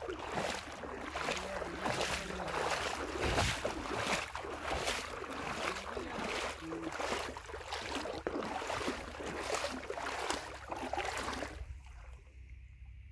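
Legs wading through shallow river water, a rhythmic splashing and swishing at about two strokes a second. It stops abruptly near the end, leaving only faint sound.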